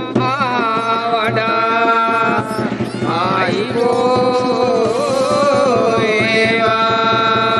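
Background music with a melody of long, held, slightly wavering notes.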